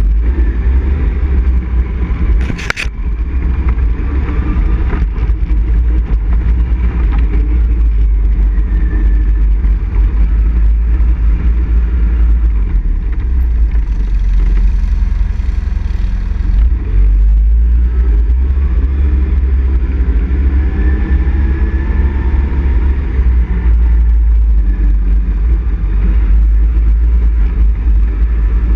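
ATV engine running as the quad rides a gravel trail, its pitch rising and falling with the throttle, over a heavy steady low rumble. A single sharp knock about three seconds in.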